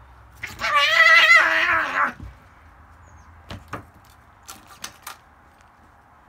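Domestic cat giving one loud, wavering yowl over a freshly caught gopher, a noise its owner has never heard from it over a catch. It is followed by a few light knocks as it pins the gopher against the door threshold.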